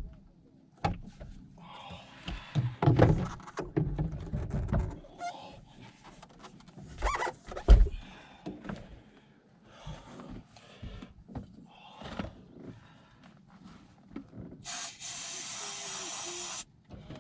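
Clattering and knocking of hands working around an outboard's engine, then near the end a steady hiss of about two seconds from an aerosol can of starting fluid being sprayed into the engine to help a cold start.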